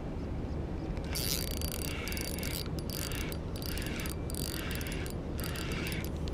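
Spinning fishing reel being cranked in short bursts with brief pauses, its rotor and gears whirring as a surface stickbait is retrieved. The winding starts about a second in, over a steady low rumble.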